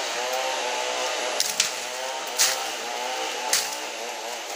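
Two-stroke chainsaw idling unevenly, with its pitch wavering slightly. A few sharp clicks break in over the top, and the saw grows fainter near the end.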